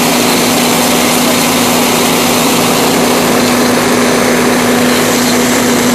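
Fire engine's pump running steadily while it supplies water to the charged attack hose: a loud, even engine drone with a constant hum and a hiss that does not change.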